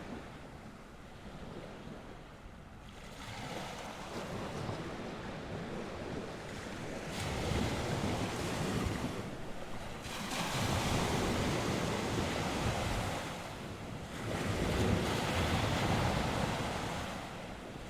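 Sea waves breaking on the shore in repeated surges that swell and ebb every few seconds, with wind on the microphone.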